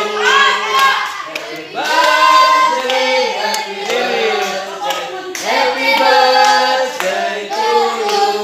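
A group of children and adults singing together, with hand-clapping.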